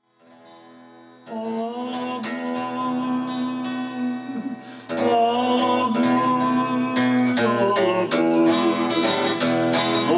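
Acoustic guitar strumming the intro of a gospel song over held chords. It starts softly, swells fuller and louder about five seconds in, and a man's singing voice comes in near the end.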